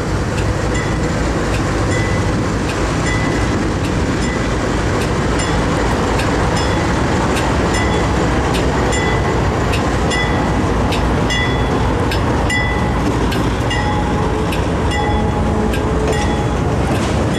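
GE C40-8 diesel locomotive passing close by with its engine running, followed by autorack freight cars rolling past. A steady rumble, with wheels clicking over the rail and occasional brief high squeals.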